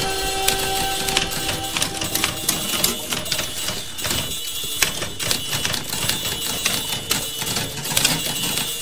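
Typewriter keys clacking in a fast, irregular run of keystrokes, over music whose held chord fades out in the first couple of seconds.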